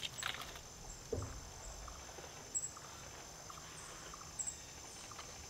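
A few faint footsteps and sharp knocks as gear is carried into a trailer, the loudest knocks about a second and two and a half seconds in, over a quiet outdoor background with a thin steady high-pitched tone.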